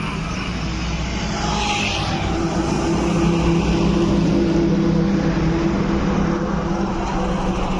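Train running with a steady low rumble and a low hum, which grows louder about two seconds in.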